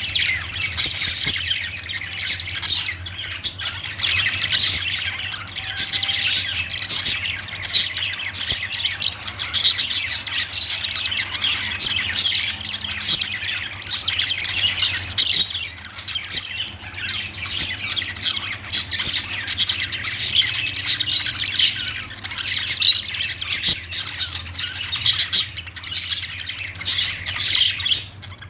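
A group of budgerigars chirping and chattering without pause, many short high calls overlapping each other.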